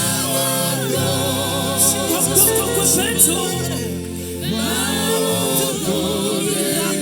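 Gospel worship music: voices singing together over long held bass notes.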